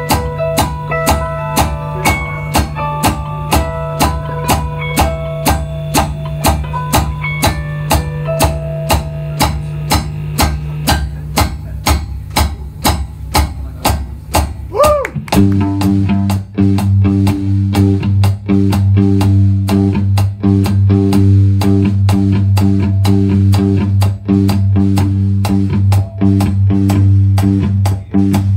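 Live rock band playing an instrumental passage on electric guitar, bass guitar and drum kit, with a steady drum beat. About halfway through, the band moves into a louder, heavier section with a sustained low bass under the drums.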